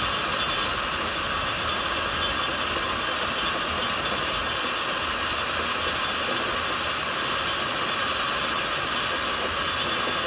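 Cliff railway funicular car running down its inclined track: a steady mechanical running noise of wheels on rails and the haulage cable and sheaves.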